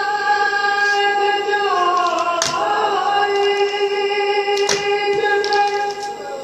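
A voice chanting a noha, a Shia lament, in long held notes that slide gently down in pitch about two seconds in, heard through a television's speaker, with a couple of sharp knocks.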